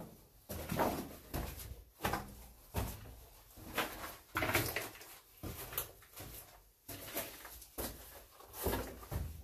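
Footsteps crunching and scuffing on loose rock and rubble in a mine tunnel, about one step a second, irregular, with the rustle of a handheld camera.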